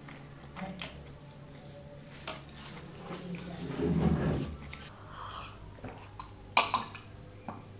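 Eating sounds at a table: scattered small clicks and mouth sounds, a louder rustling scrape about four seconds in as chicken lollipops are handled on the plate, and a few sharp clicks near the end as a glass mug is lifted to drink.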